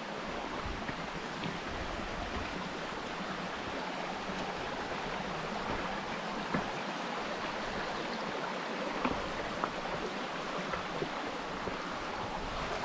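Shallow stream flowing steadily over rocks at a trail crossing, with a few faint clicks.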